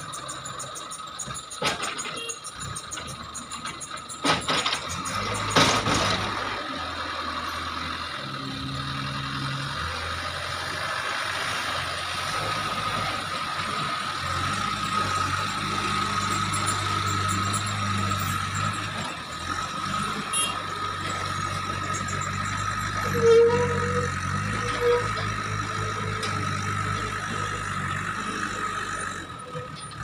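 Diesel engine of an Eicher tipper truck running steadily, its note shifting a few times as it works and pulls away. There are a few sharp knocks in the first seconds.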